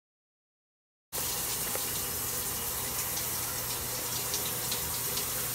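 Silence, then a shower running about a second in: a steady spray of water that starts abruptly and holds an even level.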